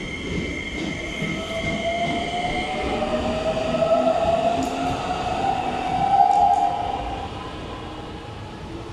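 Red Keikyu electric commuter train pulling out of the station: its traction motors whine and rise steadily in pitch as it accelerates, over the rumble of wheels on rail. The whine is loudest about six seconds in, then fades as the train draws away.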